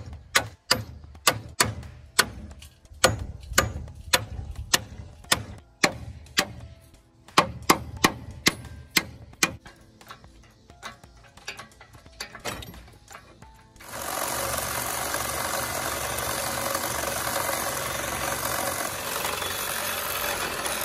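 Hammer blows on steel, in quick runs of sharp ringing strikes, knocking rusted studs through the spring hanger bracket on a 1978 Ford F-250 frame. From about fourteen seconds in, a loud steady rushing noise takes over.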